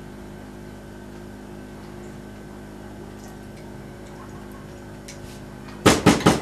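A steady hum made of several fixed tones, then three quick, sharp knocks in a row about a second before the end.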